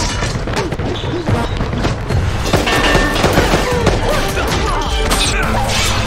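Dramatic action score under fight sound effects: a quick run of punches, thuds and crashes.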